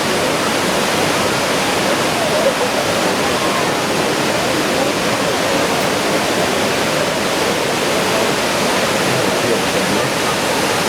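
The Kravica waterfall, a 28 to 30 metre cascade, crashing down: a loud, steady rush of falling water.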